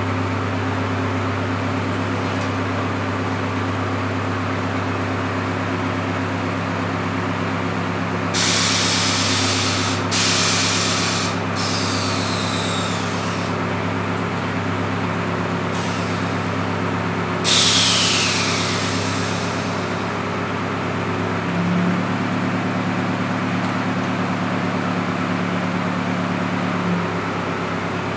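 Air-ride suspension valves on a bagged Nissan D21 pickup venting air in four hissing bursts, two of them with a falling whistle as the pressure drops, over a steady low mechanical hum.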